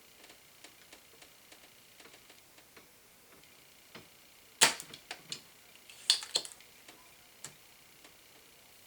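Light clicks and taps of desoldering tools and parts being handled on a workbench, with one loud sharp click about halfway through and a quick run of loud clicks a moment later.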